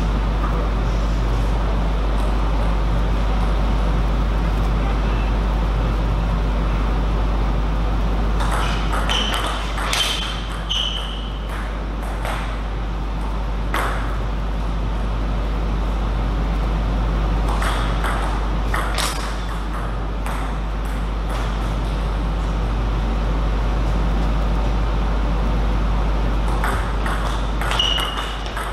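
Table tennis ball strikes: sharp clicks and pings off the table and bats in short groups, about a third of the way in, around two-thirds in, and again near the end during a rally. A steady low hum runs underneath.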